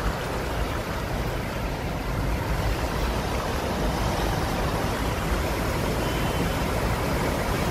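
Steady road-traffic noise on wet streets: vehicle engines running low under a constant hiss.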